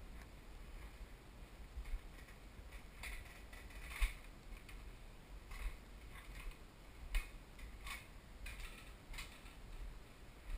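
Footsteps going down a wooden spiral staircase: faint, irregular light knocks and clicks from the wooden treads, about one a second, the loudest around four seconds in.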